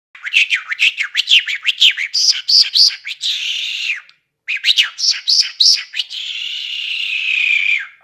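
Caged lark singing: a rapid run of quick rising and falling whistled notes, then a long buzzy trill. It breaks off about four seconds in and starts again with more quick notes and a second long trill that runs to near the end.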